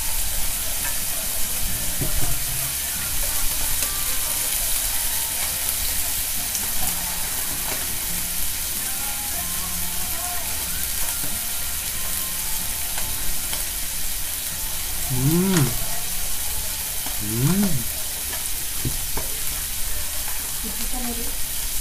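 Food frying on a tabletop hot plate: slices of eggplant, fried tofu and sausages sizzling with a steady hiss. Two short voice sounds break in about two thirds of the way through.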